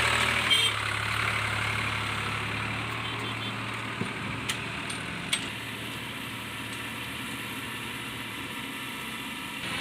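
A diesel farm-machinery engine running steadily, its low hum fading and the sound getting gradually quieter, with a few sharp clicks around the middle.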